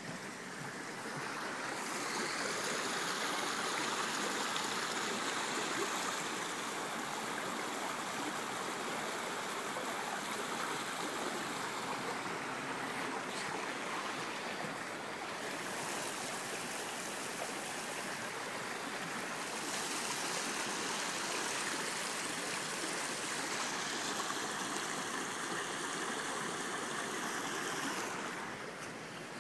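Flowing creek water making a steady rush. It grows louder about two seconds in and fades near the end.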